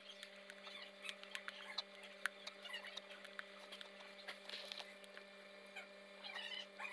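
Graphite pencil tip tapping and scratching on drawing paper, a faint run of irregular small clicks as dots are stippled in, over a steady low electrical hum.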